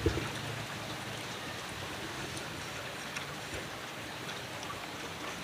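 Steady background hiss with faint scattered ticks.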